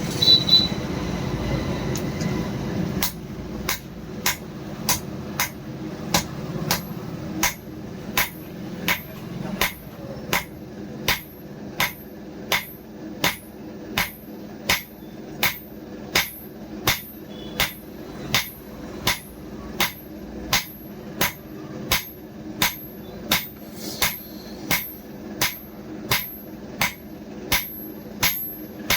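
Hammer striking steel on an anvil in a steady rhythm, about three blows every two seconds, each blow with a bright metallic ring. A louder rushing noise fills the first few seconds, before the blows take over.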